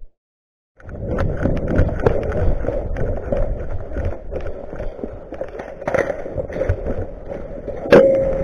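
After a short silence, footsteps and rustling gear of an airsoft player on the move, with many small knocks, a low rumble and a sharp click near the end.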